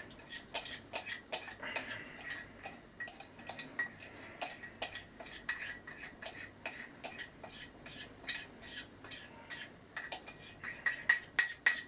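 A metal teaspoon clinking and scraping against a cup in quick, uneven strokes, working out damp sugar stuck to its bottom. The clinks come faster and louder near the end.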